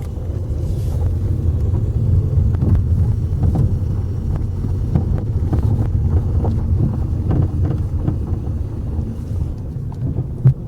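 Ford Focus 3 rolling slowly on gravel with the wheel turned: a steady low rumble from the tyres and running gear, with scattered short knocks and one sharper knock near the end. The knocking comes from the steering rack, which the owner takes for a fault in the rack.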